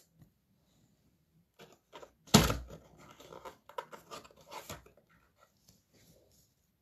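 Light plastic rustling and small clicks as a trading card is handled and slid into a clear plastic holder, with one sharp thump about two and a half seconds in.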